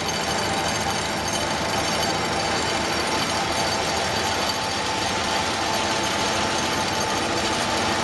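Hydraulic vibratory pile hammer, hung from a crawler crane, driving a steel sheet pile into the ground: a steady, fast, even rattle.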